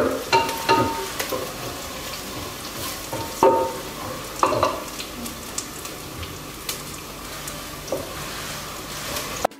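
Sliced onions sizzling in hot oil in a metal pot as they turn brown, with a wooden spoon scraping and knocking against the pot a few times as they are stirred. The sound cuts off suddenly near the end.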